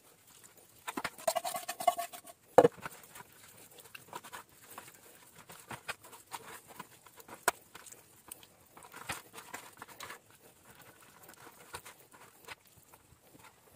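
Hands rubbing a salt, sugar and chili sauce marinade into the scored skin of a raw pork knuckle in a stainless steel baking tray: wet slapping and squelching with many small clicks. A short squeak comes about a second in, and a single sharp knock at about two and a half seconds.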